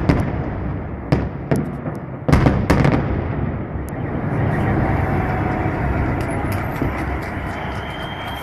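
Fireworks salute bursting: several sharp bangs, some in quick succession, in the first four seconds, then a steady rumbling noise with no more bangs.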